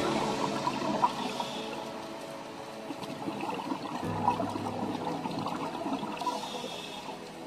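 Calm background music with held notes, a low bass note coming in about halfway, over a bubbling water sound.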